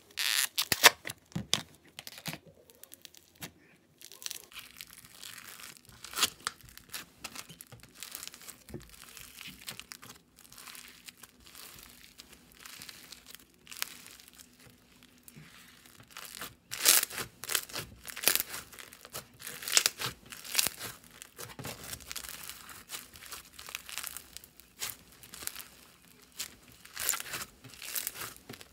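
Slime being squished, stretched and poked by hand, giving irregular crackling and crinkling sounds that come in uneven clusters, louder in the second half.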